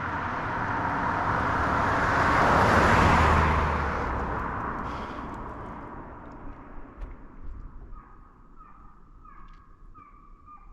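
A vehicle passes by, its noise swelling to a peak about three seconds in and fading away by about seven seconds. After it fades, a series of short, repeated animal calls is heard in the distance.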